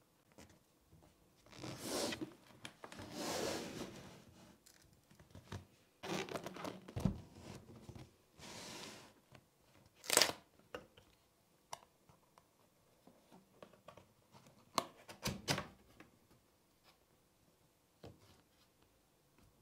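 Cardboard packaging being handled and opened: several stretches of scraping and rustling as the box's outer sleeve and lid slide off, a sharp snap about ten seconds in, then a run of light clicks and taps from the cardboard flaps.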